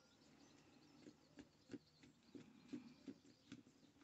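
Near silence with a series of faint, short ticks as a hand screwdriver turns a screw out of the plastic case of Lister Star horse clippers.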